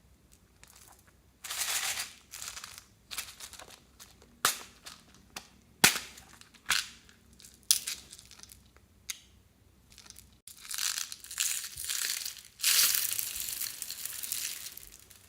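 Hands working crunchy slime mixed with beads and floam: bursts of crackling and crunching with several sharp pops, then a longer run of dense crackling in the second half.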